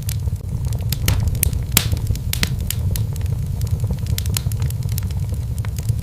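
Wood fire crackling in a fireplace: a steady low rumble from the flames with irregular sharp pops and snaps scattered throughout, the loudest a little under two seconds in.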